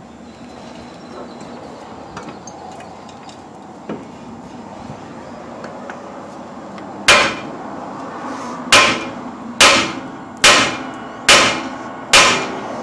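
Hammer striking a rusty steel steering knuckle six times, about one blow a second, each a sharp metallic clang with a short ring, after a few seconds of quiet tool handling. The blows shock the knuckle loose from its stud, with the nut left on a few threads to hold the knuckle and guard the thread against a missed strike.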